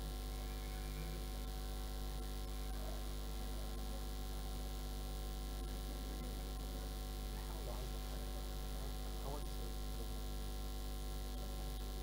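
Steady electrical mains hum with a stack of evenly spaced overtones, unchanging throughout. Faint murmuring voices surface briefly about seven to nine seconds in.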